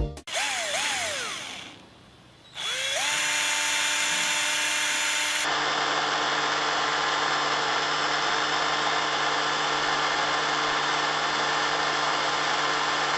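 Electric drill motor spinning up about two and a half seconds in, then running at a steady whine.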